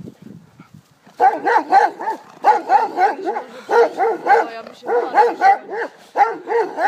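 A dog barking in quick clusters of three or four barks, repeated about every second and a bit, starting about a second in.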